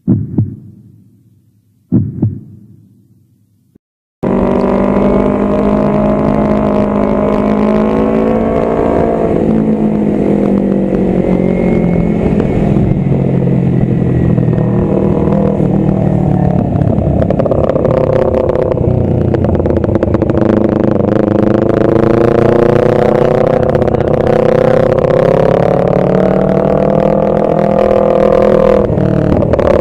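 Two low booms of a countdown intro, two seconds apart, each dying away. Then, about four seconds in, a Kawasaki Ninja 250 FI parallel-twin runs loud through an aftermarket R9 GP Series titanium exhaust while riding, its pitch falling and rising with the throttle.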